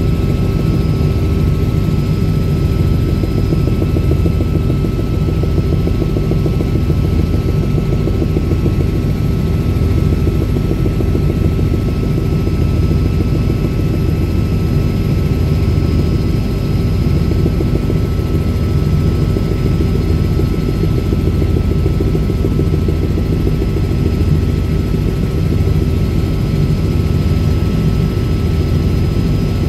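Helicopter in steady level flight, heard from aboard: a loud, even rotor throb with a steady high-pitched turbine whine over it.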